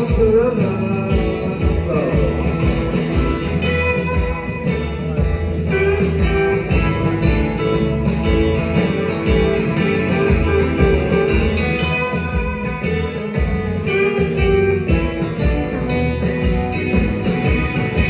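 Live band playing a blues-rock song with guitar to the fore over drums and piano, heard from the audience seats of a theatre.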